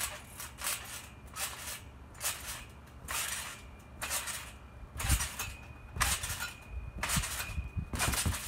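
Backyard trampoline being bounced on: the mat rasps and the springs jangle with each bounce, and from about five seconds in come heavier thumps with the springs squeaking. A front flip ends in a seated landing on the mat near the end.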